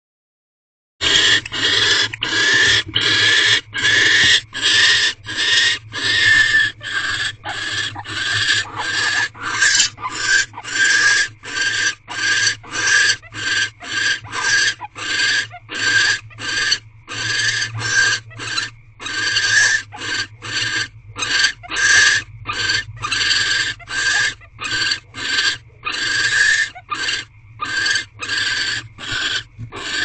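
Barn owls mating, giving a rapid, unbroken run of short harsh raspy calls, about two a second, beginning about a second in.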